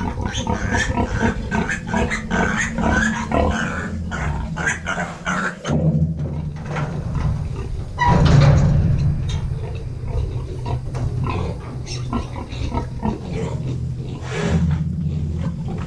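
Pigs squealing and grunting: Berkshire–Yorkshire–Duroc cross piglets being loaded, with a louder, deeper stretch about eight seconds in.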